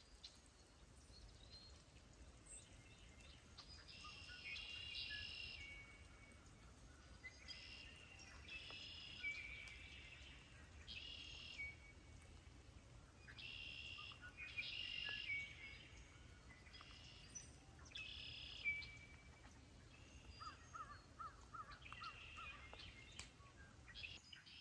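Wetland birds singing: short, repeated song phrases come every second or two, overlapping from several birds. A quick run of lower pulsing notes comes near the end.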